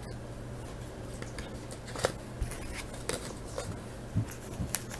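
Trading cards and packs being handled on a table: scattered light clicks and rustles, a few sharper ones about two seconds in and near the end, over a steady low hum.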